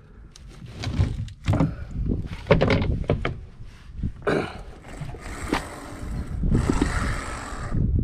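Wind buffeting the microphone in a low rumble, with knocks and thumps from someone clambering about a fiberglass boat's deck and helm, and two longer gusts of hiss after the middle.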